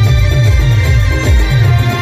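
A star band playing live through loudspeakers: loud amplified dance music with a steady, heavy bass beat under a sustained melody line.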